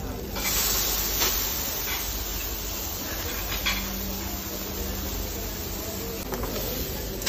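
Butterflied fish sizzling on a hot grill grate, a steady hiss that swells as the fish is laid down on the bars.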